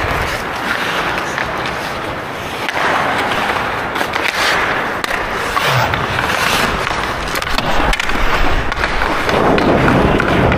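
Ice hockey skate blades scraping and carving on the ice as a player skates, with a steady rushing noise and a few sharp knocks.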